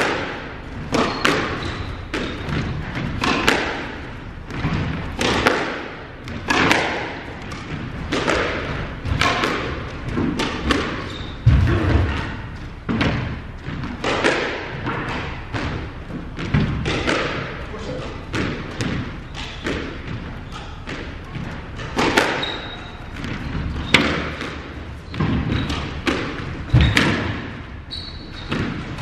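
Squash rally: the ball cracking off rackets and thudding against the court walls and floor, a sharp hit every half second to a second, with occasional short squeaks of shoes on the wooden floor.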